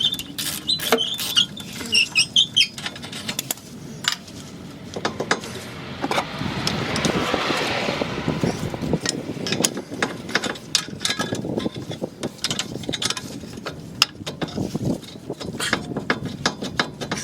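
Metal tools and brake parts clinking, knocking and scraping during work on a car's brakes, with a short squeak near the start and a hiss lasting a couple of seconds about six seconds in.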